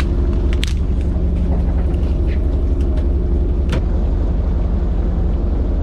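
Fishing boat's engine running steadily, a deep hum, with a few light knocks and clicks on board.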